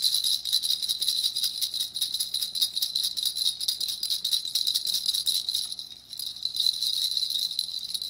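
Plastic bird rattle toy with perforated balls jingling rapidly and continuously as a white cockatoo shakes it in its beak, briefly easing off about six seconds in.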